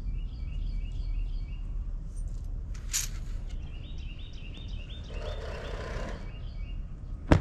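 A songbird singing runs of quick repeated chirping notes over a steady low outdoor rumble. There is a sharp click about three seconds in, a brief rustle of handled laundry around five seconds, and a louder sharp click near the end.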